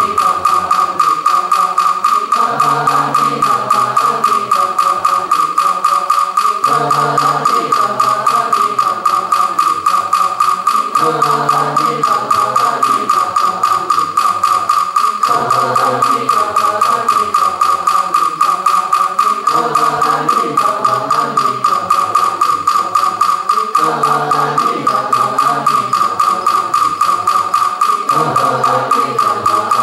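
A wooden fish (muyu) struck with a wooden mallet in a steady, quick beat of about three strokes a second, each knock with a bright hollow ring. Under it, voices chant a short melodic phrase, repeated about every four seconds, in time with the beat: Buddhist recitation of the Buddha's name.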